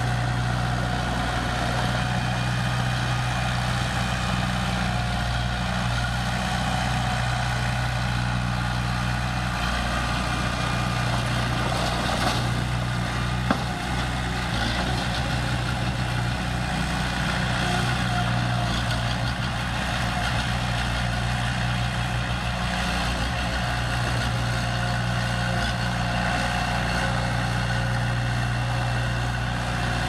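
Komatsu D20A crawler bulldozer's diesel engine running steadily as the dozer pushes soil, with one short sharp clank partway through.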